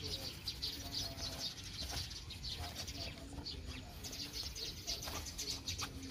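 Small birds chirping quickly and continuously in the background, with a few faint low coos.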